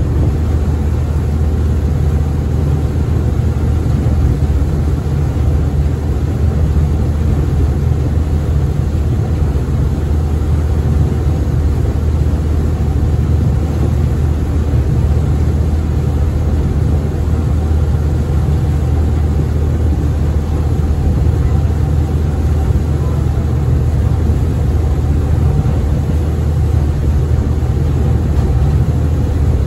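Engine of the small ferry Tsui Wah No. 12 running steadily underway, heard on board as a loud, even low drone.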